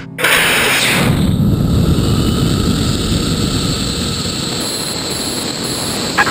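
Rocket motor of a just-launched missile burning, a steady rushing roar that slowly grows fainter as it climbs, still under power before burnout.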